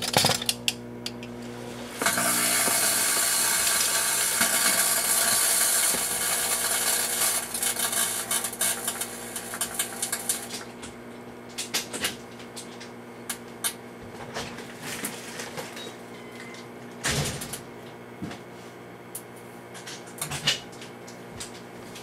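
Rival microwave oven humming as it heats a full metal aerosol can of shaving cream. About two seconds in, a loud hissing crackle sets in for around eight seconds, then gives way to scattered sharp snaps over the hum: the metal can sparking inside the oven.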